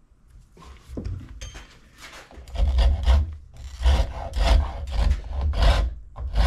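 Rasp scraping across a wooden axe handle as finger grips are carved into it: a few light strokes, then steady, heavier back-and-forth strokes at about two a second from a little past two seconds in.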